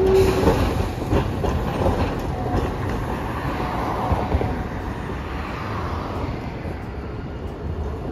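Articulated low-floor tram running past on street track: a steady rumble of wheels on rail, with scattered clicks and clatter from the rail joints, and a short steady whine right at the start.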